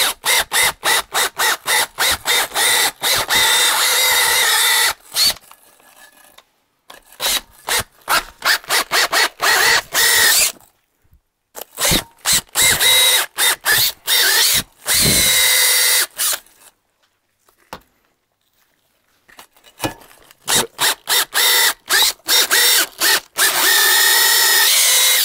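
Cordless drill spinning a brass wire brush against the liner seats of an aluminium engine block, pulsed on and off in many short bursts with a few longer runs of several seconds. This is cleaning dirt and corrosion from the bottom of the liner bores so that new liners will seal.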